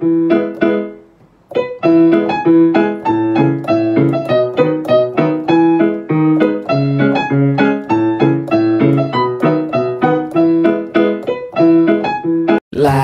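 Background piano music: a few notes, a short pause about a second in, then a steady, rhythmic run of notes over a lower accompaniment.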